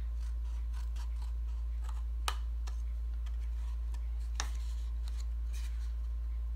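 Small scissors snipping a narrow edge off a thick cardboard flap: a run of light snips, with two sharper cuts about two seconds in and again past four seconds, over a steady low hum.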